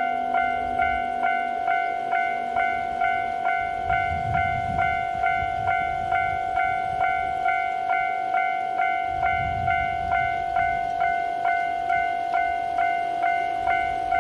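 Japanese level-crossing warning bell ringing steadily, about two bell-like strikes a second, each one ringing on at a single pitch. Two brief low rumbles sound underneath, about four and nine seconds in.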